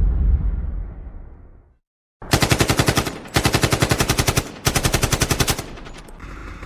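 Edited intro sound effects: a deep boom dying away over the first two seconds, then after a brief silence three bursts of automatic gunfire, about ten shots a second, each burst about a second long.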